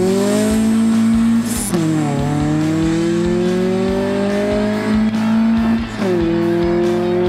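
Fourth-generation Honda Civic engine at full-throttle acceleration, its pitch climbing steadily in each gear, with upshifts where the pitch drops sharply, about two seconds in and again about six seconds in.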